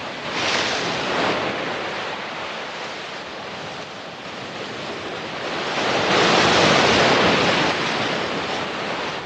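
Sea surf: waves washing in with a rushing sound that builds about half a second in, eases, then swells again to its loudest around six to seven seconds in.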